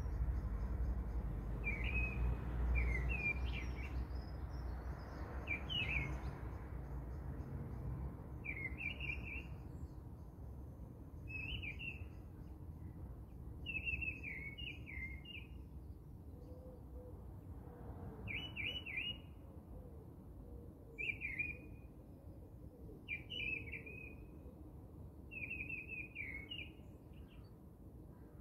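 A bird singing short chirping phrases, repeated about every two seconds, over a low rumbling noise that fades after the first few seconds.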